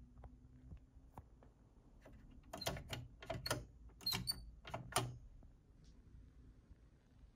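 A few faint ticks, then a cluster of about seven sharp clicks and knocks over two and a half seconds in the middle.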